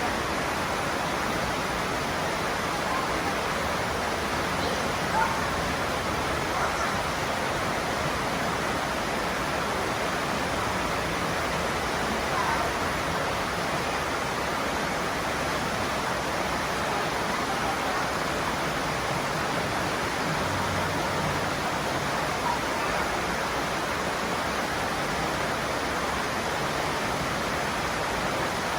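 Steady, even rushing outdoor ambience, with a few faint short chirps on top.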